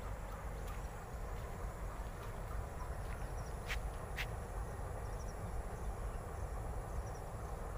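Open-air rural ambience: a steady low rumble of wind on the microphone, with faint insects chirping high above it. Two small sharp clicks come near the middle.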